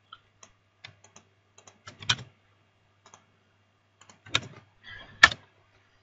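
Scattered computer keyboard key presses, uneven and mostly light, with a few louder clicks about two seconds in and near the end, as a web address is entered into a browser.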